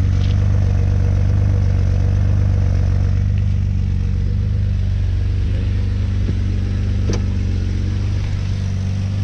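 Mercedes 190E engine with KE-Jetronic fuel injection idling steadily, heard at the twin exhaust tailpipes. With its new Bosch injectors it is running a lot better but still not perfect. A brief click comes about seven seconds in.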